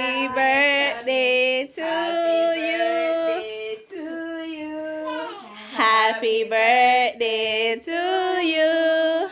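Women and children singing a slow tune in long held notes, pausing briefly for breath between phrases.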